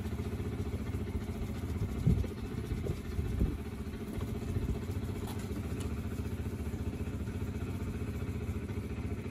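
A steady low rumble, with two brief louder bumps about two and three and a half seconds in.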